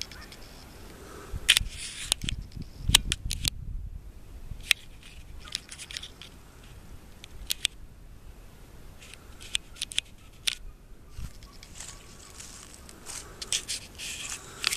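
Irregular sharp clicks and crackling rustle, in clusters every few seconds, with a low rumble about two to four seconds in.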